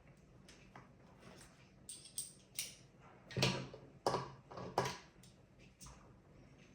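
Hands working on a small NAS enclosure's hardware: a string of sharp plastic-and-metal clicks and knocks, loudest between about three and a half and five seconds in.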